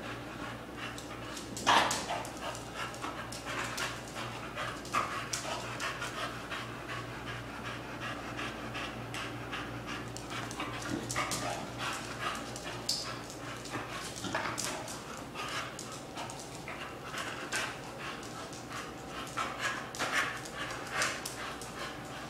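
Small dog panting hard as it leaps at a hanging punching bag, with many short knocks and clicks from its jumps and the bag; the loudest knock comes about two seconds in.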